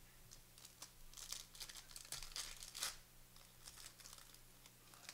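Trading card pack wrappers torn open and crinkled by hand: a quick run of crackles, busiest from about one to three seconds in.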